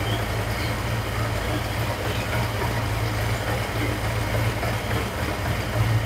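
Truck engine on a Holley Sniper EFI throttle body idling steadily, its idle settling after an idle air control adjustment, with the IAC holding around 3 to 5%.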